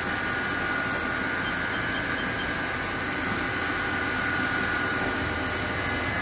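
CNC vertical machining centre running with its spindle turning, a steady high whine over an even machine hum, not yet cutting, with the coolant switched off and the axes moving at a slow 5% rapid.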